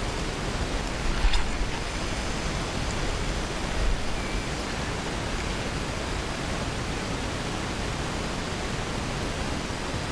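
Steady hiss of wind on the microphone, with a few low buffets in the first few seconds.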